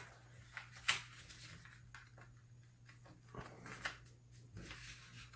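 Faint rustling and a few soft clicks of a sheet of paper being folded in half and creased flat by hand on a wooden table, over a faint low hum.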